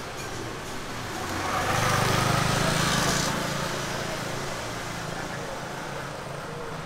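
Small motor scooter engine passing close by, growing louder to a peak about two seconds in and fading away by about three and a half seconds.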